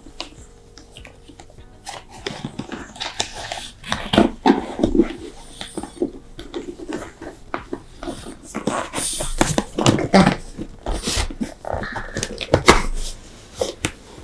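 Cardboard packaging being opened and handled: scattered rustles, scrapes and taps of box flaps and lid, thickest around the middle and near the end, with a French bulldog sniffing at the box and background music.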